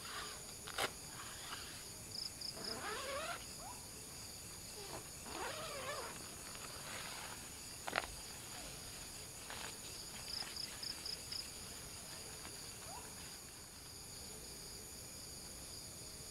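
Crickets and other night insects chirring steadily, with short pulsed bursts of chirps about two seconds in and again around ten seconds. Over them come sharp clicks and rustling as a nylon tent's rainfly is handled and clipped on, the loudest click about eight seconds in.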